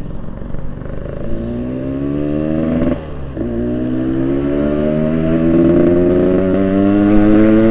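Yamaha RX-King 135cc two-stroke single-cylinder motorcycle engine pulling away and accelerating, its pitch climbing steadily and getting louder. One gear change comes about three seconds in, after which the pitch climbs again.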